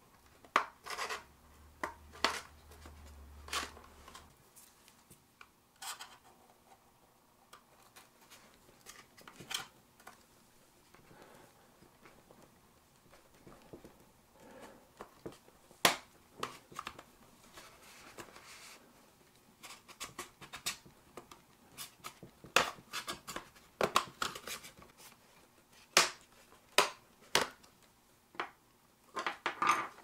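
Plastic prying tool scraping along the seam of a Dell Inspiron 15-5000 laptop's base cover, with irregular sharp plastic clicks as the cover's snap clips work loose. The clicks are loudest and most frequent in the second half.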